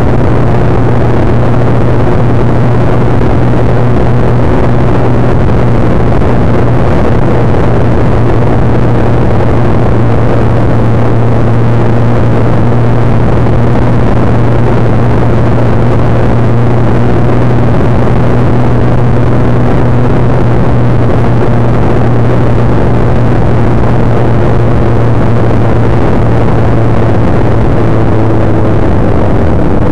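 Suzuki GSX-R 1100's inline-four engine droning steadily at cruising speed, heard from the rider's head with loud wind rush over the microphone. The engine note eases slightly near the end.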